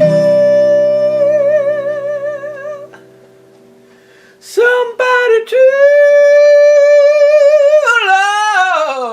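A singer holds long high notes with vibrato over a ringing acoustic guitar chord. A short pause about three seconds in, then another long held note that slides downward near the end.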